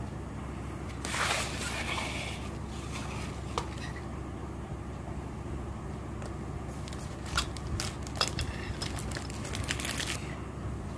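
Fabric rustling as the lace and chiffon are handled, then a run of sharp clicks from a handheld pearl setting machine pressing beads onto lace, over a steady low background rumble.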